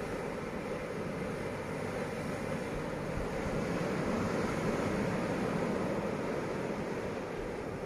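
Steady rumbling of a passenger train rolling along the track, heard from on board, growing a little louder midway.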